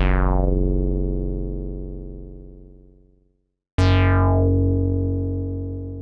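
Two cinematic bass hits from a Korg EX-800 synthesizer module. Each strikes sharply, starts bright and darkens as it fades over about three seconds. The second comes nearly four seconds in and is still fading at the end.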